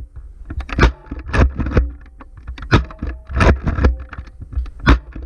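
Nerf foam-dart blasters in a mock battle: a rapid, irregular string of sharp clacks and thumps from blasters being fired and handled and darts striking things, over a low rumble of movement.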